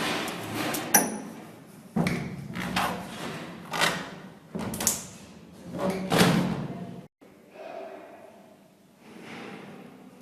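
Fire doors slamming shut: a series of heavy bangs and thuds, about one a second, each ringing on with an echo. After a sudden break about two-thirds of the way in, only quieter knocks follow.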